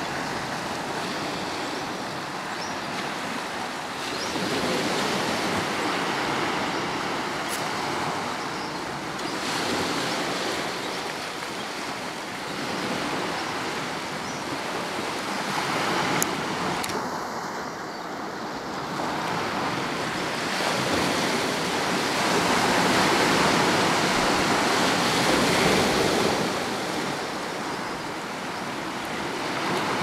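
Surf breaking and washing up a sandy beach: a steady rushing noise that swells and fades every several seconds, loudest about three-quarters of the way through.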